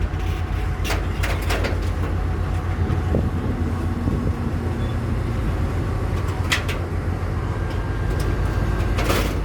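Tugboat's diesel engine running steadily, a deep continuous drone, with a few sharp knocks about a second in, in the middle and near the end.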